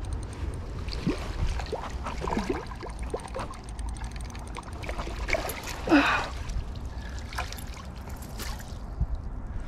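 Water splashing and sloshing at the river's edge as a hooked mullet is played in close to the bank on a spinning rod. The splashes come in short, irregular bursts, the loudest about six seconds in, over a steady low rumble.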